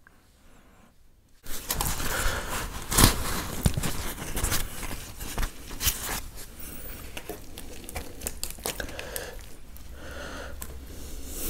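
Butter naan being torn apart by hand close to the microphone: a crackly tearing and rustling with sharp little snaps, starting about a second and a half in and loudest soon after.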